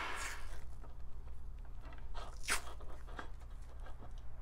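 Cloth wiring-harness tape being pulled off the roll and wrapped around a bundle of wires, heard as a few short rasping pulls, the loudest about halfway through.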